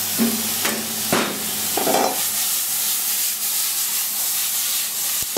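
Vegetable stir fry sizzling in a red-hot wok as it is stirred and tossed, with a few sharp knocks in the first two seconds.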